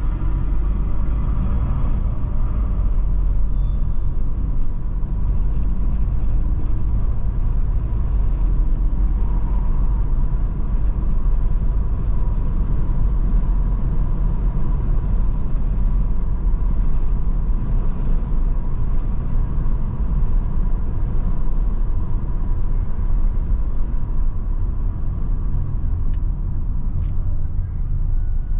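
A car driving on a paved road: a steady low rumble of engine and tyre noise, with a faint steady tone above it.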